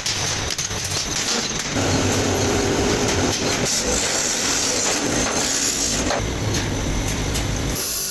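Factory machinery running with a dense, steady clatter, growing louder about two seconds in.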